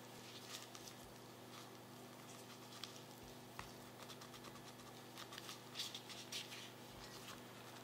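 Plastic-gloved hand setting oiled portions of noodle dough into a glass bowl, making soft, scattered squishes, dabs and glove rustles with a few light clicks.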